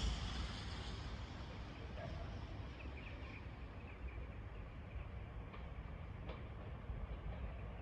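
Quiet outdoor ambience: a low, fluctuating rumble of wind on the microphone, with a few faint bird chirps from a few seconds in.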